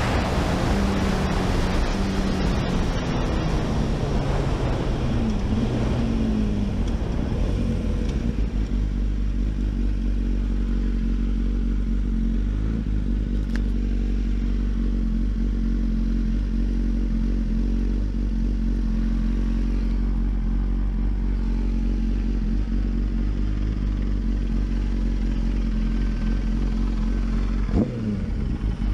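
Honda CBR sportbike's inline-four engine heard from the rider's seat: wind rush and a falling engine note as the bike slows, then a steady idle for about twenty seconds while it is stopped, and a brief rev as it pulls away near the end.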